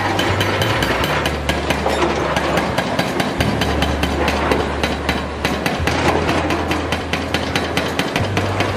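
Hydraulic breaker on a large excavator hammering into concrete rubble: a fast, even stream of chisel blows, several a second, over the steady low drone of the excavator's diesel engine.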